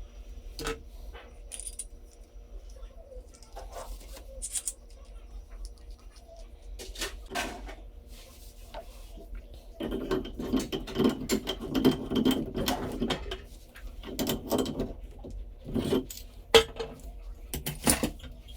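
Metal hand tools and faucet parts clinking and knocking as a bathtub faucet's replacement stem is fitted into the wall valve, turning to longer stretches of scraping and rubbing in the second half.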